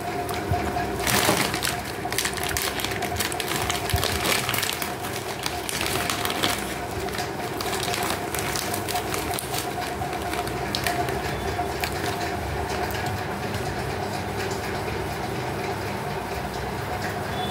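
Thin plastic bakery bag crinkling and rustling as it is handled, opened and a sticky tape seal peeled off, in many short crackles, over a steady background hum.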